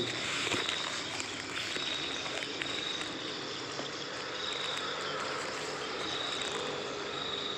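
Insects trilling in the background, a high thin trill that breaks off and resumes several times over a steady hiss.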